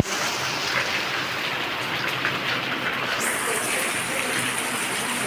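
Steady rain falling on surfaces, an even hiss with a short click at the very start.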